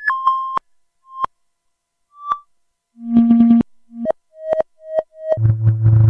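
Modular synthesizer playing short, pure-pitched chirps and blips that jump between high and low pitches with pauses between them, some in quick stuttering runs, patched to sound like synthetic bird song. Near the end a low buzzing tone with many overtones comes in and holds.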